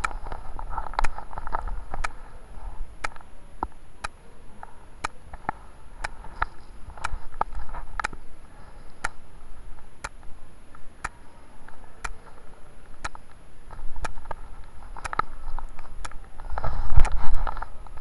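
Muffled rustling and low rumbling with sharp clicks ticking about once a second; the rumbling swells and is loudest near the end.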